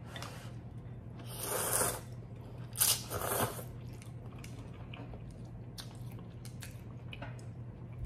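A person slurping ramen noodles twice: a long, building slurp about a second and a half in and a sharper, shorter one just before three seconds. Then soft, wet chewing clicks.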